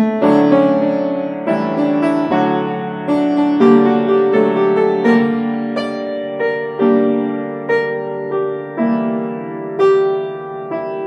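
Upright piano played solo: a slow piece of chords and melody notes struck about once or twice a second, each left to ring and fade.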